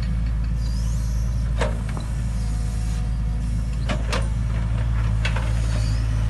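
Tracked excavator's diesel engine running steadily with a low hum while it digs planting mounds, with a few short knocks from the machine's work.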